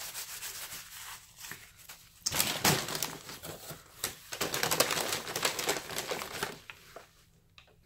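Paper fast-food packaging crinkling and rustling as it is handled. It is light at first, gets louder and denser about two seconds in, and dies away about a second before the end.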